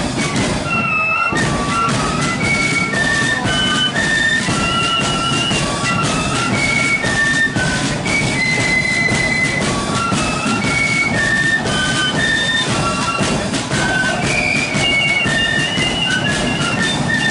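Flute band playing a tune: many flutes in unison carrying a high, quick melody over beating drums.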